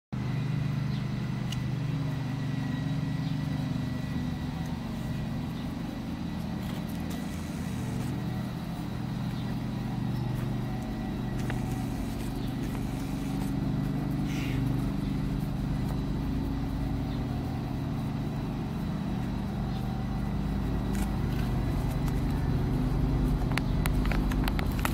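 A steady low motor hum, like an engine running, with a few faint clicks over it.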